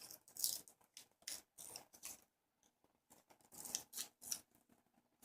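Scissors snipping paper in short, irregular cuts, trimming a picture close around the edge of a cabochon. There is a brief pause in the cutting a little past the two-second mark.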